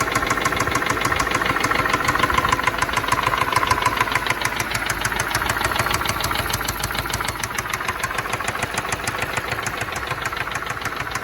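BMW N63 twin-turbo V8 running with a fast, even knocking. The owner puts it down to the camshaft solenoids and a loose timing tensioner.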